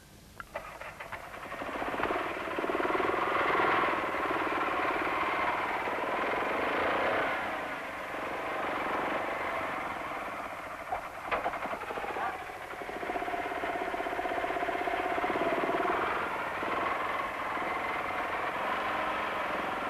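Hanomag R12 tractor's single-cylinder two-stroke diesel running steadily with a fast beat while its finger-bar mower cuts grass. The sound swells in over the first couple of seconds, and there are a few sharp knocks about halfway through.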